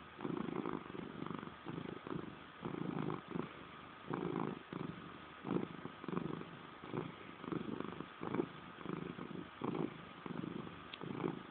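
Domestic cat purring close to the microphone, the purr swelling and easing about twice a second with its breathing.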